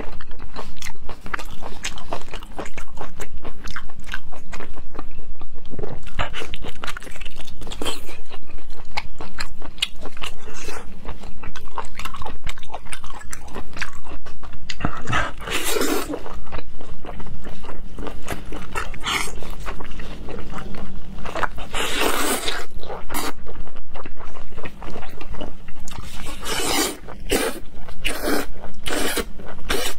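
Close-miked wet chewing and biting of whole cooked octopus, with dense small clicks throughout. A few louder slurps come about halfway through and again near the end as tentacles are sucked in.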